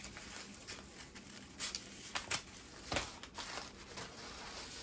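Scissors snipping crepe paper and the paper rustling and crinkling as it is handled: a handful of short, crisp snips and rustles, the loudest about three seconds in.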